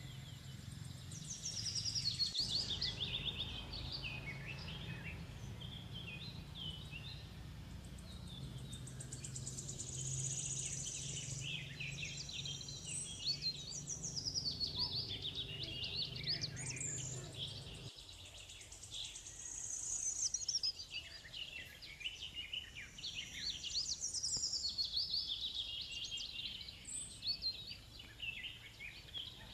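Many birds chirping and singing in quick, high calls that rise and fall, over a low steady rumble that stops abruptly a little past halfway.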